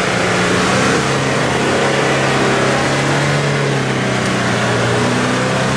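Engine of a homemade off-road buggy running hard at steady revs as it pushes through swamp mud and water, with water and mud churning and splashing around the wheels.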